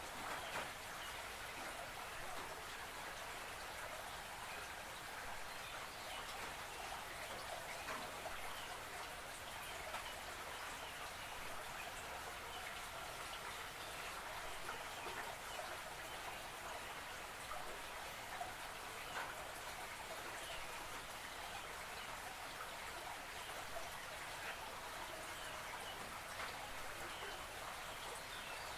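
Creek water flowing steadily, a constant wash of water sound with many small splashes and drips.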